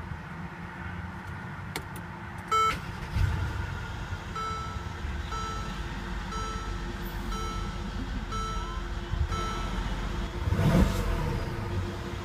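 A car's warning chime sounds about once a second, six times, after one louder beep, over the low steady rumble of the Mercedes-Benz SL550's engine. Near the end the engine revs up and back down.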